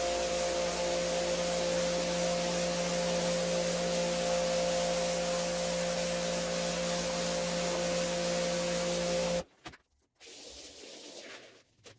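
A motor-driven carpet-cleaning machine running steadily with a hiss and a steady hum, cutting off abruptly about nine and a half seconds in.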